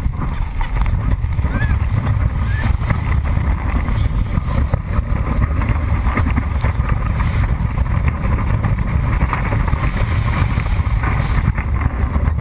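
Roller coaster ride heard from a microphone on the moving car: wind buffeting the microphone over a steady, deep rumble from the train running on its steel track.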